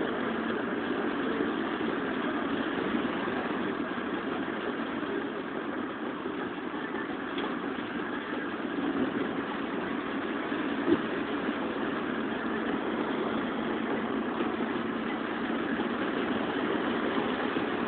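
Steady road and engine noise inside a car cruising on a highway, with one short click about eleven seconds in.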